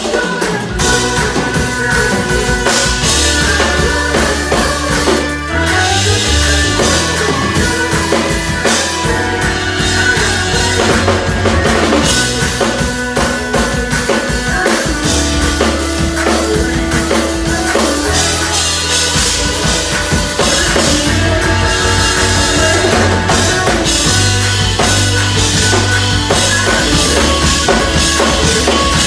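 Live drum kit played fast and busy, with dense hits on drums and cymbals over held low bass notes and sustained chords.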